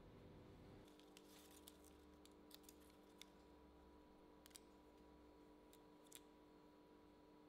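Near silence: a scattering of faint ticks and crinkles as metallic foil tape is peeled and pressed around a steel tube joint, over a low steady hum.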